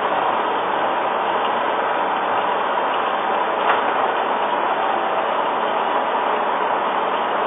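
Gear-cutting machine tool running steadily, a continuous mechanical noise with a single click about three and a half seconds in.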